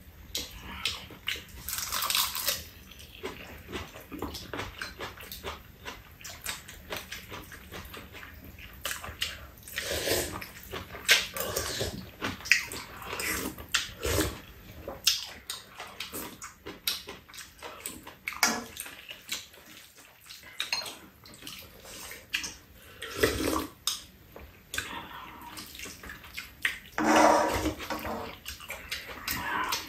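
Two people eating from a shared pan: chewing and slurping noodles, with spoons and chopsticks clicking against bowls and a metal tray.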